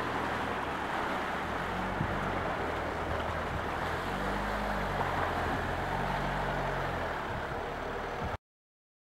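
Land Rover Freelander 2's engine running as the SUV wades slowly through a muddy, flooded pit, water swishing around its wheels. The engine note rises for a moment about halfway through, and the sound cuts off suddenly near the end.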